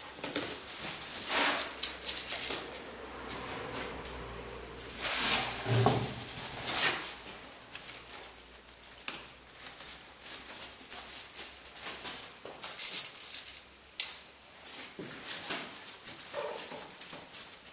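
Aluminium foil crinkling and rustling in irregular handfuls as it is pressed and folded onto a cardboard box, loudest for a couple of seconds around the middle, with a sharp click later on.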